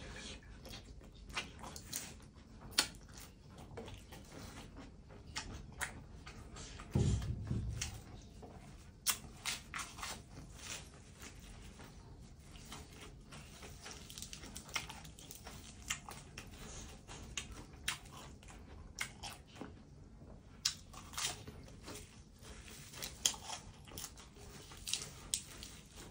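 Close-up chewing and crunching of spicy raw-shrimp laab and fresh lettuce leaves, with many small irregular wet mouth clicks and smacks. About seven seconds in there is one dull low thump.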